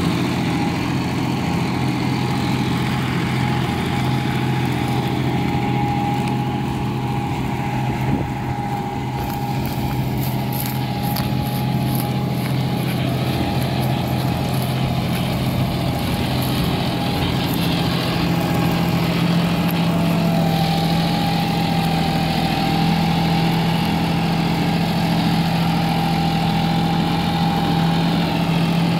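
John Deere 5210 Gear Pro tractor's three-cylinder diesel engine running steadily while pulling a tillage implement through the soil. Its note steps up in pitch and gets slightly louder about two-thirds of the way through.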